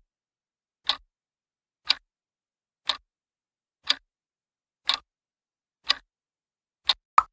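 Countdown clock-tick sound effect: single sharp ticks, one a second, timing a seven-second quiz answer. Just before the end, a slightly different short blip with a ringing tone follows the last tick.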